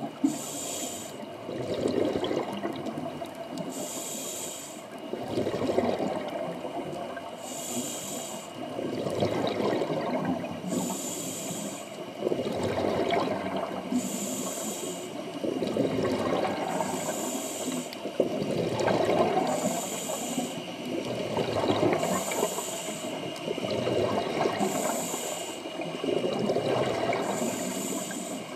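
Scuba regulator breathing underwater: a short hiss on each inhale, then a longer gurgling rumble of exhaled bubbles, one breath about every three seconds.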